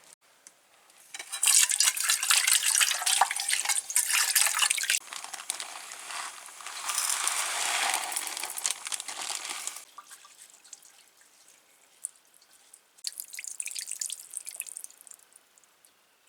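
Water running and splashing, probably into a container, in two long spells and then a shorter one near the end.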